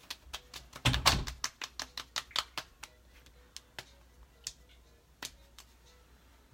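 Hands patting skincare product into the skin of the face: quick light slaps, several a second for about three seconds, then fewer and further apart. There is a louder thump about a second in.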